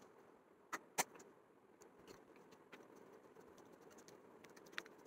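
Faint handling sounds of powder being applied from a plastic compact: soft dabs of a sponge puff on skin and small clicks and taps of the case, with two sharper clicks about a second in, over quiet room hiss.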